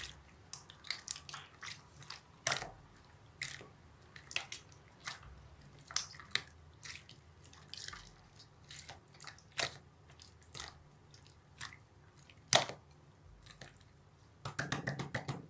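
Irregular sharp clicks and taps, a few a second, with a quick run of them near the end.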